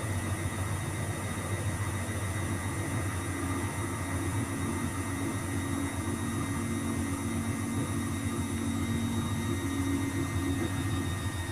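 Luxor WM 1042 washing machine running with a steady low hum and a thin high motor whine. A second, mid-pitched tone joins about three seconds in and fades near the end.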